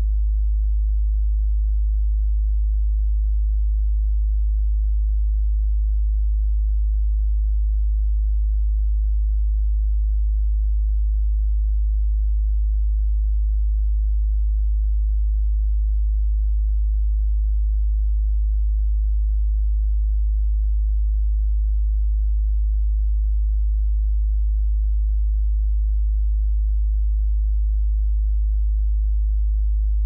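Steady, unchanging low sine tone at about 52 Hz, the note G#1.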